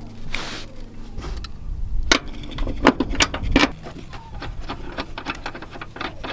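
Ratchet wrench with an 18mm deep socket working the truck's rear-seat bolt nuts loose: a run of sharp, irregular clicks and knocks, thickest around two to four seconds in.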